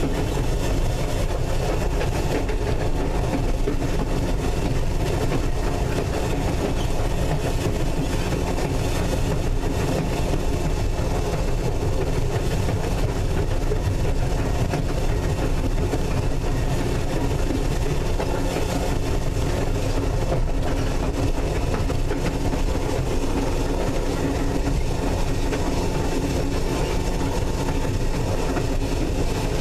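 North Shore Line electric interurban car 749 running at speed, heard from inside the car: a steady rumble of wheels on rail and running gear.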